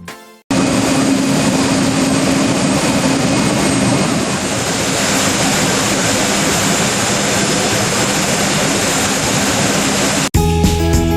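Large aircraft's engines running: a loud, steady rush with a low hum, starting about half a second in and cutting off abruptly near the end.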